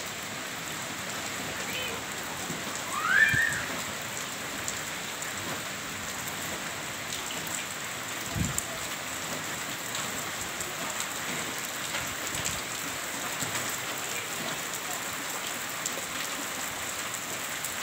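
Heavy rain falling steadily in a windstorm, an even hiss of rain. About three seconds in a short rising call sounds above it, and a brief low thump comes about halfway through.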